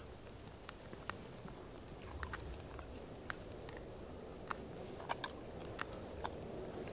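Rosemary being broken up by hand over a cooking pot: a dozen or so small, irregular crisp snaps and crackles over a faint steady background hiss.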